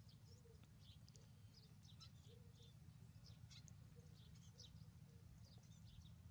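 Faint, quick high-pitched animal chirps and squeaks, many of them at irregular intervals, over a steady low hum.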